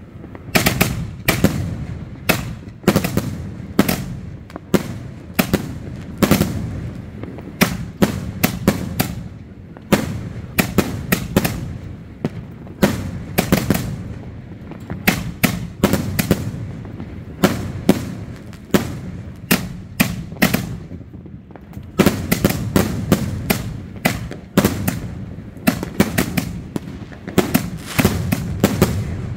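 Consumer fireworks going off in a long run of sharp bangs, often two or three in quick succession, a few every second, with a short lull about twenty seconds in.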